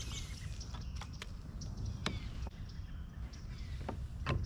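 A handful of sharp clicks and light knocks, about one a second, over a steady low rumble, with faint bird chirps near the start.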